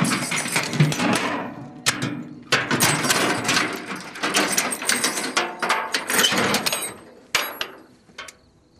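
Mechanical clattering and rattling with sharp knocks. There are two long bursts, then a couple of single knocks near the end.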